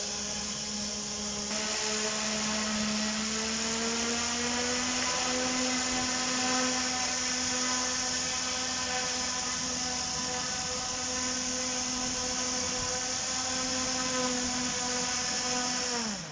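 Home-built XellBlaster electric blower, a small hobby electric motor driving a fan, running with a steady whine and a rush of air as it blows into the charcoal grill to feed the fire more oxygen. Its pitch rises slightly a few seconds in, then it spins down and stops near the end.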